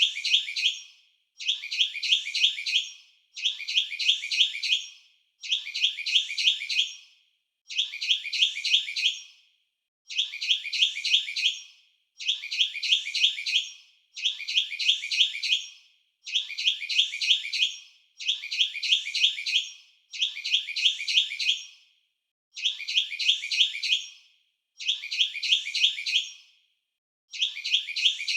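A songbird singing a short, quick phrase of high chirping notes, repeated about every two seconds with the same pattern each time.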